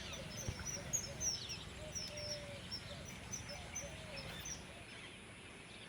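Birds chirping: many short, high calls, some sliding up or down in pitch, with a few lower calls among them. The sound fades gradually toward the end.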